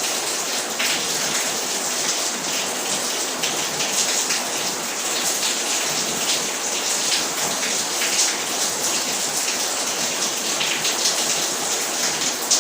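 Steady rain: an even hiss dotted with many small ticks, unbroken throughout.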